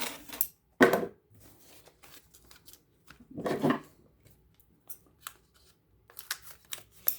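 Packaging and small tools being handled and opened: rustling and clicking in a few short bursts, the loudest about a second in and another around three and a half seconds in.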